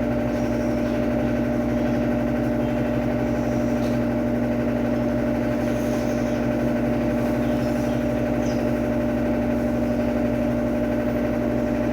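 Electrolux Turbo Economia 12 kg (LTE12) top-loading washing machine in its final spin at maximum speed: a steady hum of motor and drum with constant tones and no change in speed.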